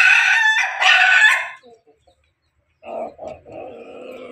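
Rooster crowing: one loud crow in two parts with a short break, ending about one and a half seconds in. After a pause, a lower-pitched call starts about three seconds in.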